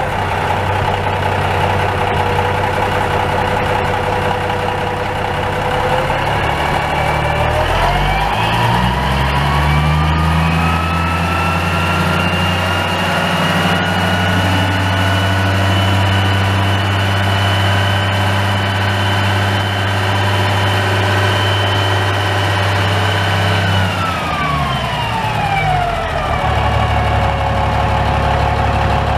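Komatsu 140M haul truck's Cummins K19 six-cylinder turbo diesel idling, then revved up smoothly over a few seconds and held at a steady higher speed for about a quarter of a minute, before dropping back to idle near the end.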